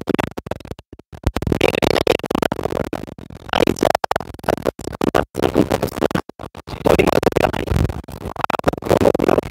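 A man's voice, choppy and garbled, with the sound cutting out completely for split seconds several times, as from a glitching live-stream feed.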